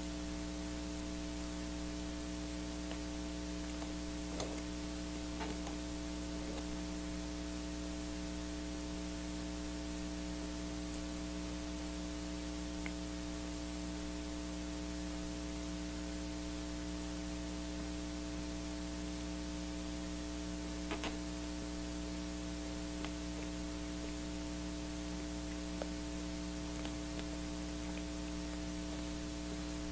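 Steady electrical mains hum with a layer of hiss from the recording setup. A few faint clicks come through now and then, with no speech.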